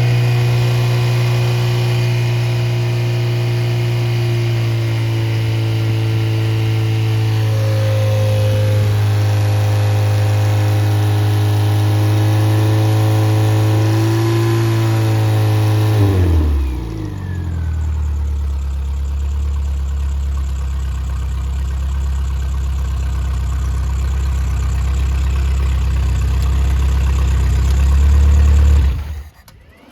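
Rebuilt Triumph Spitfire/MG Midget 1500 inline four-cylinder engine running steadily at a raised speed. About halfway through it drops to a lower idle, then is switched off and stops suddenly near the end.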